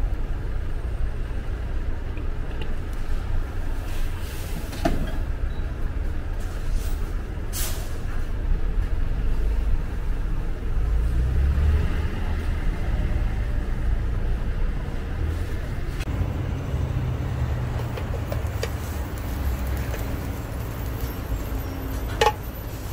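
Low, steady rumble of passing street traffic, with a few sharp clicks of utensils at the griddle.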